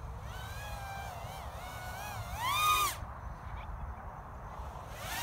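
FPV racing quadcopter's brushless motors whining in flight, the pitch gliding up and down with the throttle. The whine rises to its highest and loudest about two and a half seconds in, stops abruptly about three seconds in, and starts again near the end.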